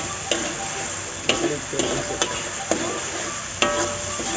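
Slotted metal spatula scraping and knocking against a steel wok while stirring a spice paste frying in oil, over a steady sizzle. Several sharp metal strikes come at irregular intervals as the paste is turned.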